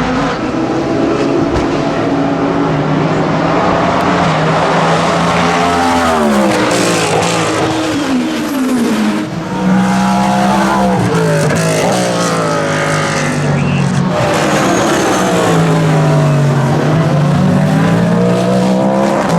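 Cadillac V-Series.R GTP race car's naturally aspirated V8 running hard, its pitch falling and rising several times as the car brakes, shifts down and accelerates away again.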